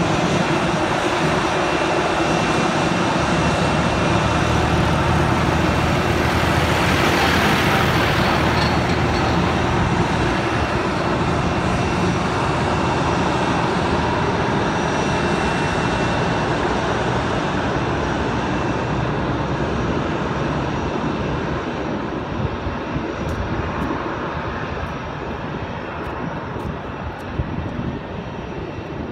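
Jet engines of a taxiing Airbus narrow-body airliner running at low thrust: a steady whine and rushing hiss that swells as the aircraft passes about seven seconds in, then slowly fades as it moves away.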